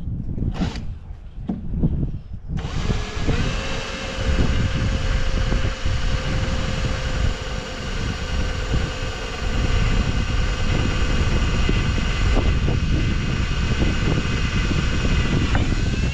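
Cordless drill driving a screw through a PVC splash rail into a boat hull, starting a couple of seconds in and running at a steady speed for about thirteen seconds before stopping just before the end.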